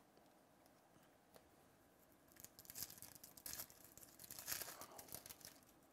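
Foil trading-card pack wrapper being torn open and crinkled, a rapid crackling rustle that starts about two seconds in and lasts about three seconds.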